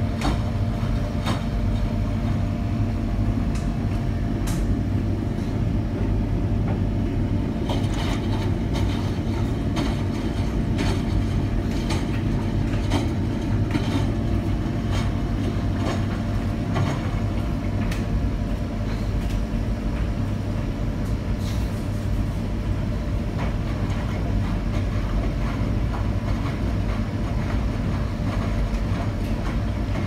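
Miele washing machine running a wash cycle: a steady motor hum with irregular clicks and knocks as the drum turns.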